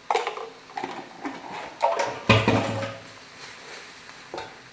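Cookware and utensils clattering: a series of separate knocks with short metallic ringing, the loudest a little over two seconds in.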